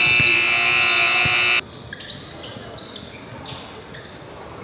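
Gym scoreboard buzzer sounding a loud, steady buzz that cuts off abruptly about a second and a half in, with a basketball bouncing on the hardwood court.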